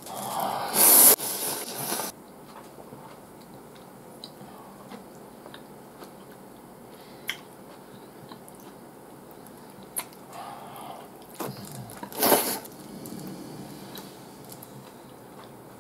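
Ramen noodles being slurped: a loud slurp over the first two seconds and another shorter one about twelve seconds in, with quieter chewing and small clicks in between.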